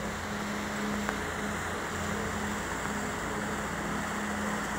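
Sightseeing river boat's engine running with a steady low drone, under a constant rush of wind and water noise.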